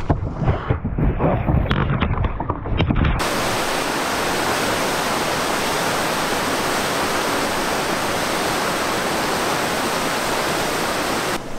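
Steady, even roar of rushing whitewater that starts abruptly about three seconds in. Before it, gusty rumbling and knocks on the microphone.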